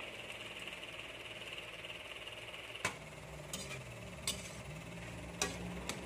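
Bitter melon and tomato sizzling in an aluminium wok, then a spatula knocking against the pan about five times as the vegetables are stirred, starting about three seconds in.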